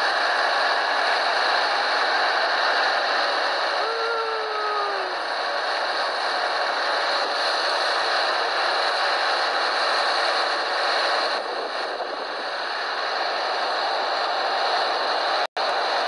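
Steady rushing noise of a boat under way on a river, engine and water together. A short falling tone sounds about four seconds in, and the sound cuts out for a moment near the end.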